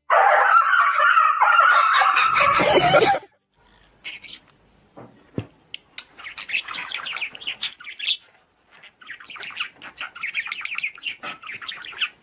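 Bird-like calls: a loud, dense squawking for about three seconds that cuts off suddenly, then bursts of short, high chirps on and off.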